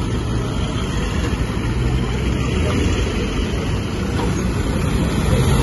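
SUVs and pickup trucks driving slowly past, a steady engine and road rumble.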